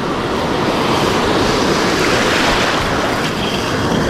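Steady rush of surf washing over the reef, with wind buffeting the microphone.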